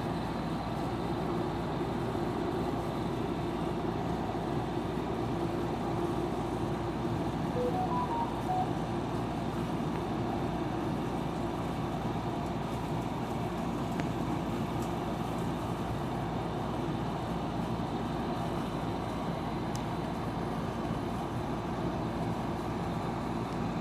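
Steady, even noise of a running vehicle, with no breaks or changes.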